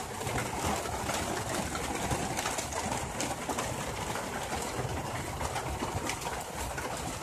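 Heavy rain falling outside, a steady even hiss with faint scattered ticks.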